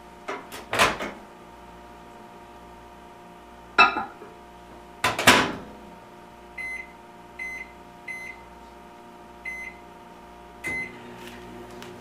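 A Rival microwave oven being closed and started: a few loud clunks as the door is handled and shut, then five short keypad beeps of the same pitch. After the last beep the oven starts running with a steady hum.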